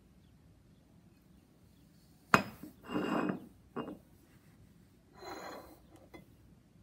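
Objects handled and set down on a hard surface: a sharp knock about two seconds in, then scraping and rubbing noises in short bursts, with two lighter knocks.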